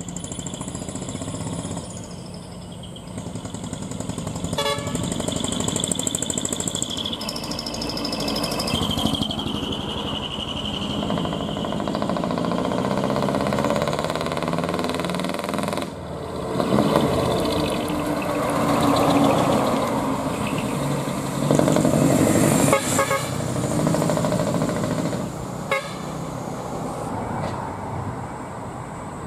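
Diesel trucks with split exhaust manifolds driving past. In the first ten seconds or so, horns sound a run of steady high notes that change pitch every second or two. After that, the engines rumble and rap loudly, with a few sharp cracks near the end.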